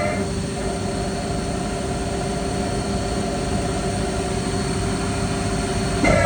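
Weiler E90 CNC lathe's spindle drive running at a steady speed, a steady multi-tone whine over a mechanical hum. About six seconds in the whine starts dropping in pitch as the spindle begins to slow down.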